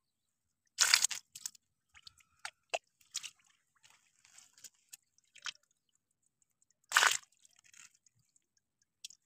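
Wet crunching and squishing of a hand handling a wet fish net and the small fish and shrimp in it, with two louder bursts about a second in and about seven seconds in and scattered small clicks and drips between.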